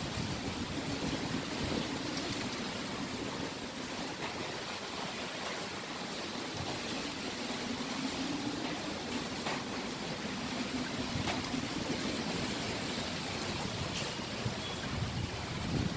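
Typhoon wind blowing hard and steadily. A low moaning tone comes and goes in the middle, and a stronger gust swells near the end.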